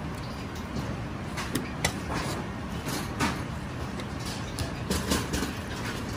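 Chinese cleaver slicing raw kuruma prawns on a plastic cutting board: a handful of light knocks and scrapes of the blade against the board, over a steady low background hum.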